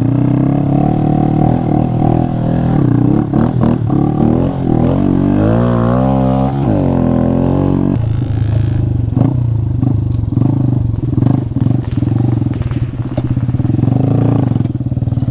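Honda Grom's small single-cylinder engine running under way, its pitch wavering up and down around the middle as the throttle changes, with scattered knocks from the bike going over rough trail.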